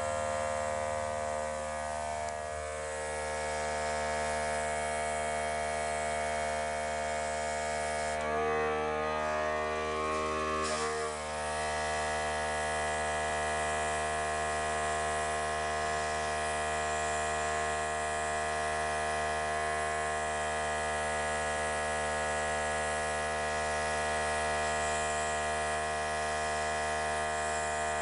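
A small electric motor humming steadily, with a brief change in its sound about eight to eleven seconds in.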